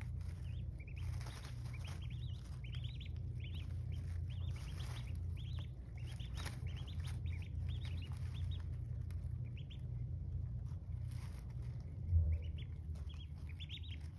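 Day-old ducklings peeping: many short, high, arching peeps overlapping throughout, over a steady low hum. A louder low thump comes near the end.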